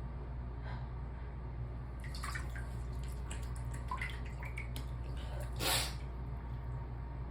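A person's nose and mouth: small wet clicks, then one short, sharp noisy breath about three-quarters of the way through, over a steady low hum.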